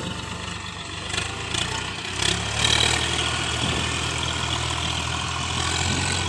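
Swaraj 744 FE tractor's three-cylinder diesel engine running under load as it pulls a trailer across a field, its steady low hum growing stronger about two seconds in. A few short knocks come in the first seconds.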